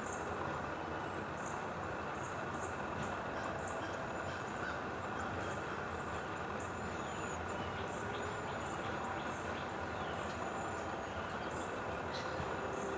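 Outdoor background: a steady even noise with small birds giving short, high, thin chirps over and over, some sliding down in pitch.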